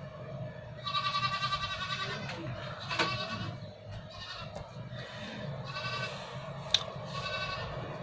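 An animal calling four times in the background, each a high, wavering cry of up to about a second, the first the longest; a sharp click sounds just before the last call.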